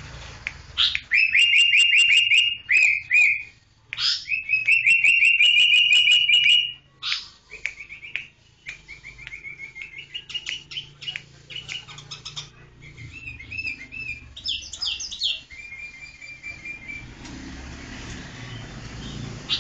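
Sooty-headed bulbul calling: rapid runs of short, loud chirps, two long runs in the first seven seconds, then quieter, scattered chirps and a few rising notes.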